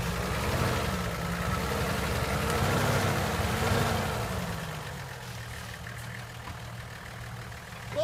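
Off-road 4x4's engine with the revs rising and falling a few times as it works over rough ground, then settling back to a steady idle about halfway through.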